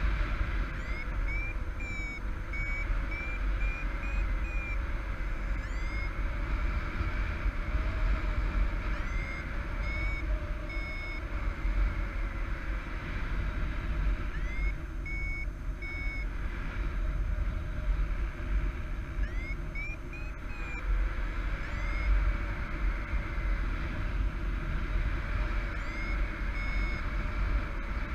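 A paragliding variometer beeping in repeated groups every few seconds. Each group starts with a rising chirp and then gives short, high, evenly pitched beeps: the climb tone of a thermal. Steady wind noise rumbles on the microphone underneath.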